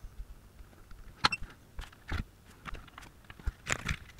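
Scattered light clicks and scrapes of small hand tools on a used electrolytic capacitor's wire legs as they are cleaned up for soldering. One sharper click with a brief ring comes about a second in, and a cluster of clicks comes near the end.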